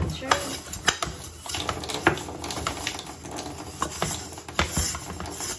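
Irregular clicks and knocks of hands handling a glass electric kettle with its lid open, with a small packet worked over the open top.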